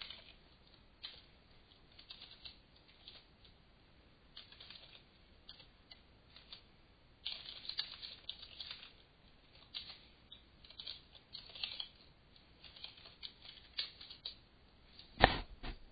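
Computer keyboard being typed on: irregular runs of key clicks with short pauses between them, and a louder pair of strokes near the end.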